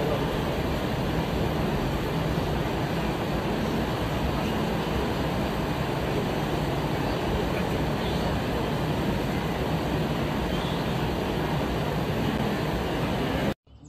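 Steady, dense rumble and rush of a large wildebeest herd stampeding down a riverbank and churning through the water: hooves, bodies and splashing mixed into one continuous noise. It cuts off suddenly just before the end.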